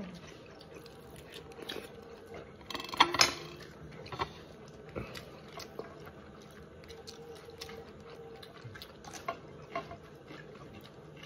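Eating with bare hands: fingers picking at rice and vegetables on a plate, making scattered small clicks and soft mouth sounds, with a brief louder clatter about three seconds in.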